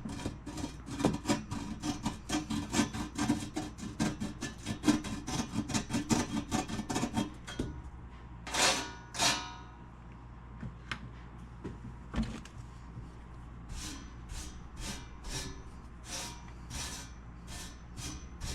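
Razor blade scraping rust off a stereo's metal top panel in quick repeated strokes, then two longer strokes about eight seconds in, and a slower run of even strokes near the end.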